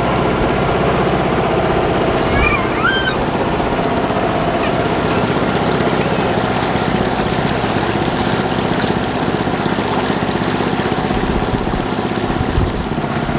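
Hired river launch under way: its motor running steadily with water rushing along the hull. A few brief high chirps come about two to three seconds in.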